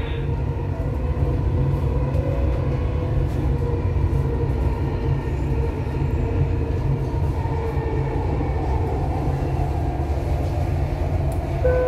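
Dubai Metro train running at speed on elevated track, heard from inside the front car: a steady low rumble of wheels on rail, with faint steady motor tones above it. A short tone sounds right at the end.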